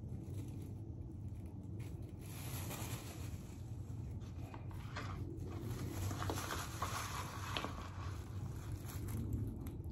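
Clear plastic gloves rustling and a tint brush scraping through wet hair as a bleach paste is worked into a mannequin head, in irregular soft strokes over a steady low hum.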